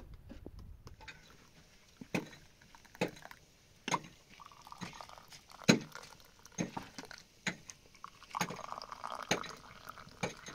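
Short, sharp taps at a steady pace of about one a second.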